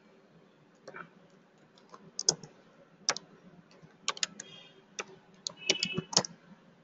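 Computer keyboard typing: a string of irregular keystroke clicks starting about a second in, as a short terminal command is typed.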